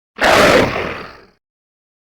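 A scary creature sound effect: one harsh, breathy growl that starts abruptly and fades out after about a second.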